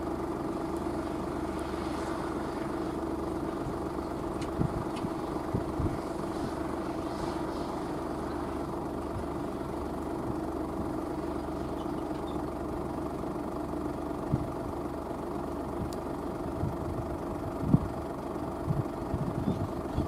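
Fendt 724 Vario tractor's six-cylinder diesel engine running steadily under ploughing load, pulling a five-furrow reversible plough through the soil. A few brief low thumps sound over it, most of them near the end.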